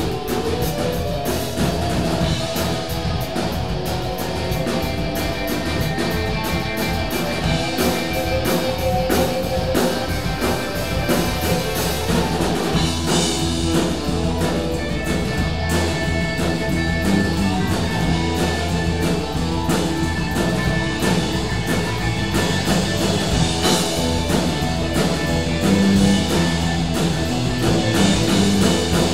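Live rock band jamming: electric guitars, bass guitar, keyboard and drum kit playing together, improvised.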